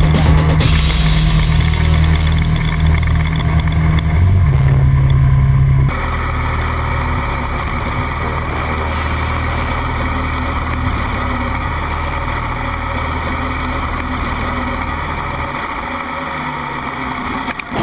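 Yamaha TT250R Raid's air-cooled single-cylinder four-stroke engine running steadily as the motorcycle rides along, with a low hum and wind rush. The level drops abruptly about six seconds in.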